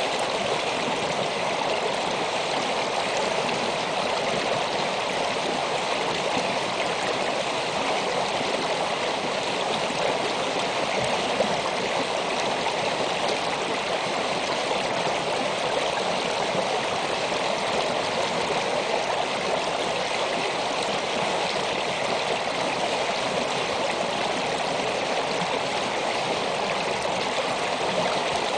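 Shallow winter stream of snowmelt water running steadily over rocks, an even, continuous rush of water with no breaks.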